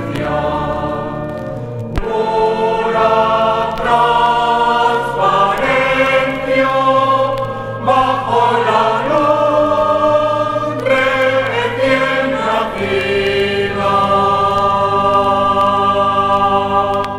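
Church choir singing a hymn in several-part harmony, moving through sustained chords and settling on a long held chord in the last few seconds.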